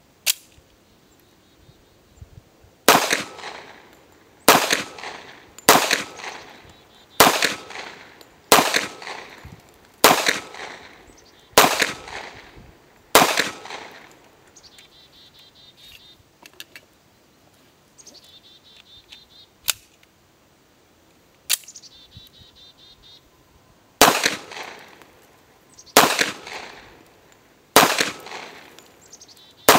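Taurus 1911 Commander .45 ACP pistol firing: eight shots about one and a half seconds apart, each followed by a short echoing tail. After a pause of about ten seconds with a couple of sharp clicks, four more shots about two seconds apart come near the end.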